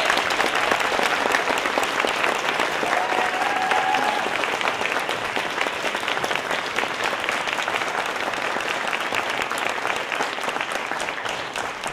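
Theatre audience applauding: many hands clapping in a dense, steady patter that begins to thin out near the end.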